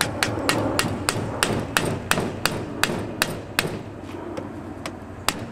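Small hammer tapping a pin punch against a stuck pin in a Martini-Henry Mk II rifle's receiver: a steady run of sharp taps, about three a second. The pin has not yet started to move.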